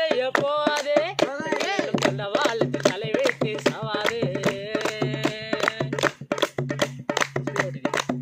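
Tamil gaana song performed live: a man's voice sings a bending melody over a two-headed barrel drum beaten in a steady rhythm, with hand claps on the beat. The singing drops out about six seconds in, leaving the drum and claps.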